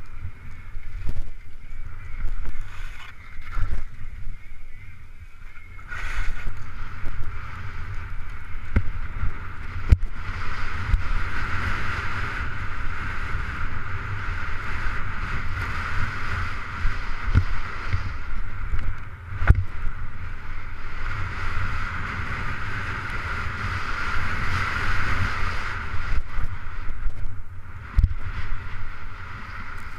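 Wind buffeting a body-worn action camera's microphone during a fast ski descent. The skis hiss and scrape over the snow, rising and falling with each turn, and there are a few sharp thumps.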